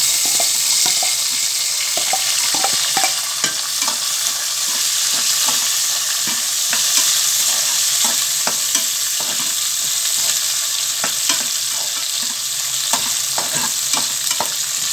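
Chopped onion frying in hot oil with tempered mustard seeds, fenugreek and dried chillies, sizzling steadily while a spatula stirs and scrapes the pan with frequent light clicks.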